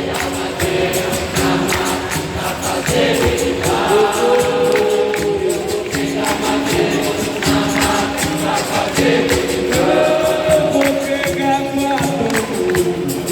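Capoeira roda music in the slow Benguela rhythm: berimbau and pandeiro with a group of voices singing call-and-response chorus lines.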